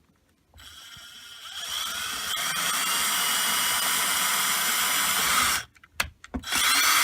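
Electric drill with a 2 mm bit running, speeding up and boring through cork underlay and the baseboard. The motor stops about five and a half seconds in, then runs again briefly near the end.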